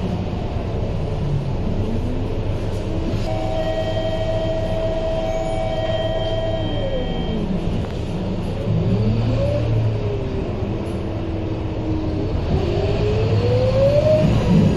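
Scania K230UB single-deck bus running, with a low rumble and a whining tone over it. The whine holds steady for a few seconds, falls away, swoops up and down, and rises again near the end.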